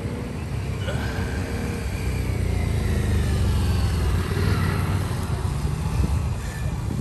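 Motorcycle engines running as training bikes ride around the range, one passing close by so the rumble grows louder toward the middle.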